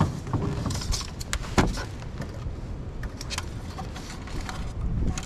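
Plastic zip tie being fastened around bundled wires: scattered clicks and rustling from handling the wires, with a sharp knock about one and a half seconds in.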